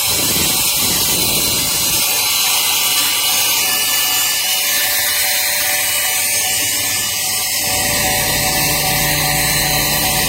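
Small cordless handheld car vacuum running steadily: an even, loud rushing hiss with a fixed motor whine.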